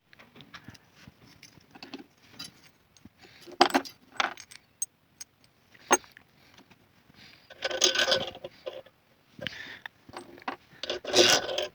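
Irregular clinks, taps and scrapes of metal parts and tools being handled, with louder clattering bursts about four seconds in, around eight seconds in and near the end.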